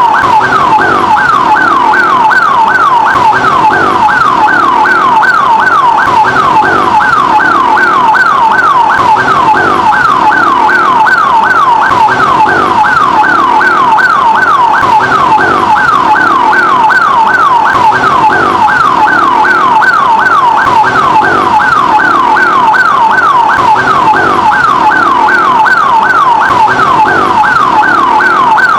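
Ambulance siren in a fast yelp, its pitch sweeping up and down a few times a second. It stays loud and steady, without approaching or fading.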